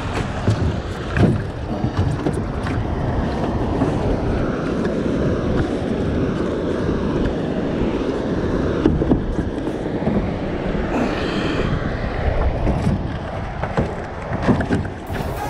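Steady rushing of wind and water around a small metal jon boat, with a few knocks and thumps on the hull.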